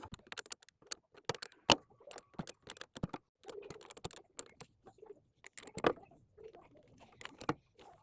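Irregular light clicks and metallic clinks of a spanner and terminal hardware as a car battery's connections are undone and handled.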